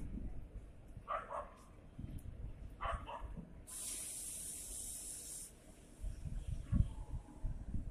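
A dog barks twice, faintly, about a second and three seconds in. A steady high hiss follows, lasting about two seconds.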